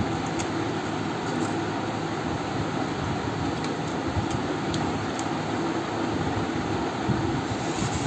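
Steady machine hum of room background noise, with a few faint light clicks from the plastic parts of a keypad phone being handled and fitted together.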